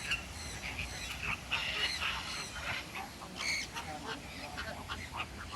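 A flock of birds calling, with many short, high chirps and squawks overlapping in quick succession.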